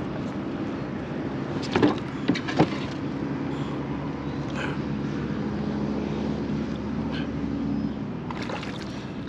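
A hooked redfish being played out beside a kayak: a few sharp knocks and splashes about two seconds in, over a steady low hum.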